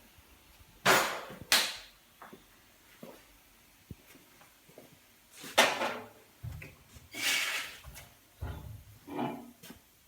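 Faema Zodiaco lever espresso machine being handled: two sharp clunks about a second in, a few small knocks, then a run of short rushing bursts and low thuds in the second half.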